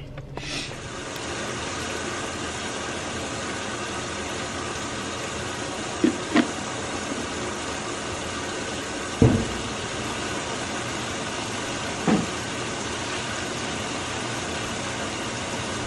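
Steady hum and whir of laundromat washing machines and dryers running, with a few light knocks about six, nine and twelve seconds in.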